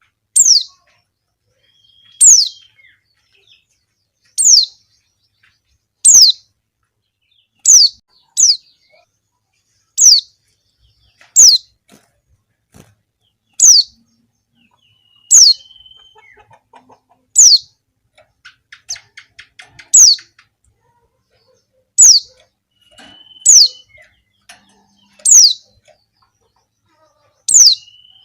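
Female white-eye (pleci) calling: short, sharp, high notes that drop quickly in pitch, one every second and a half or so, sometimes in quick pairs. This is the call of a female in breeding condition calling to males.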